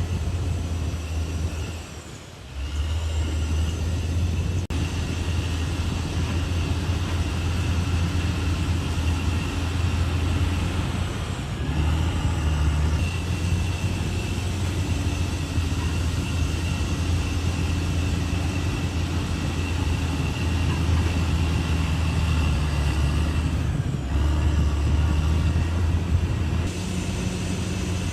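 Caterpillar D6R XL bulldozer's diesel engine running with a steady low drone, briefly dropping in level about two seconds in.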